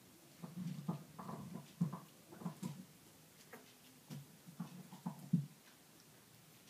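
Young puppies, about two weeks old, making short grunting and whining calls in quick succession; the calls stop about a second before the end.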